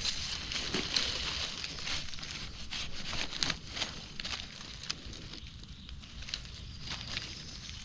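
Irregular crackling and rustling of dry leaf litter and twigs on a forest floor, as someone moves through the undergrowth.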